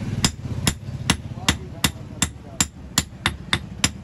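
Hand hammer striking an old steel axe head laid on a steel anvil block: a steady run of sharp metal-on-metal blows, about two to three a second.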